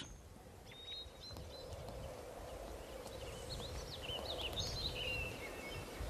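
Faint outdoor ambience: a low, steady rumble with scattered short, high bird chirps, most of them between about one and five seconds in.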